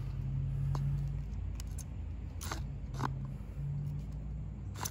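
Bow-drill burn-in: a horseweed hand-drill spindle spun by a bow grinds in a fireboard divot under a bottle-spout bearing block. It makes a low drone that rises and falls in pitch with the bow strokes, with about four sharp clicks.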